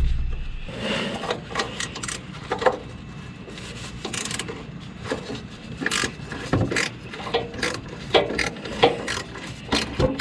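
Hand tools working on rusted exhaust bolts and parts: irregular metal clicks, knocks and scraping, with a sharp knock at the start.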